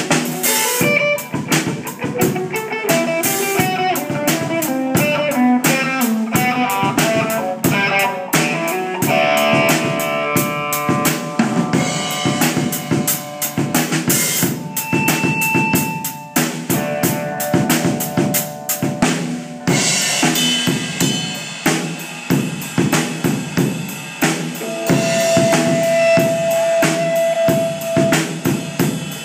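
Live acoustic drum kit, with bass drum, snare and cymbals, played in an improvised jam alongside an amplified electric guitar playing notes and some long held tones.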